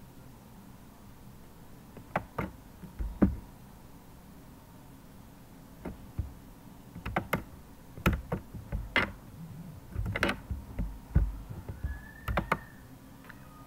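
Computer keyboard keys tapped irregularly: a few separate keystrokes, then quicker clusters of taps from about seven seconds in.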